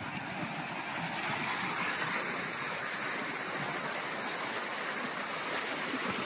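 Steady, even rushing noise with no distinct events, like running water or wind on a microphone.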